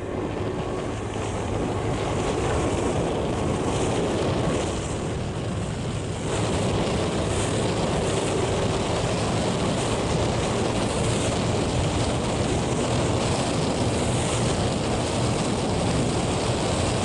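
Wind buffeting the microphone and water rushing past a moving boat, with a boat engine droning steadily underneath.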